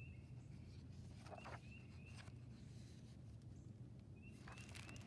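Near silence: room tone with a steady low hum and a few faint, short, high chirps spread through the pause.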